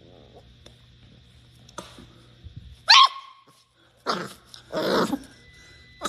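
Yellow Labrador retriever puppy giving three short, high barks; the first, about halfway through, is the sharpest and loudest.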